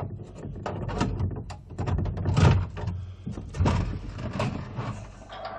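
A heavy door being unlocked and opened: a run of clanks, knocks and scrapes, loudest about halfway through.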